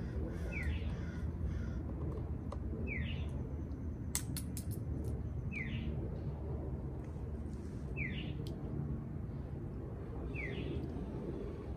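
A bird's short call sliding downward in pitch, repeated five times at an even pace of about one every two and a half seconds, over a steady low hum. A quick run of sharp clicks comes about four seconds in.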